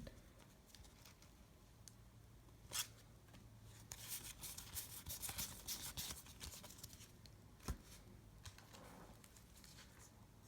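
Faint rustling and scraping of trading cards being handled, with a short tap about three seconds in and another near eight seconds.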